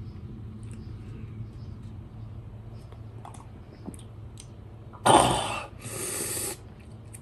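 A man sipping hot soup from a spoon with faint slurps and small mouth clicks, then a loud sharp exhale about five seconds in, followed by a long breathy hiss drawn through clenched teeth.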